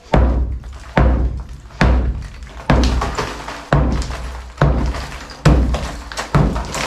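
Heavy hammer blows breaking up a concrete kitchen counter slab faced with marble: a dull thud about once a second, eight times in a row.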